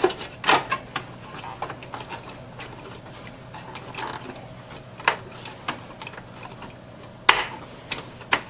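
Plastic CPU heatsink cover being fitted back into a small form factor desktop case: scattered plastic clicks and knocks, the sharpest about seven seconds in, over a faint steady hum.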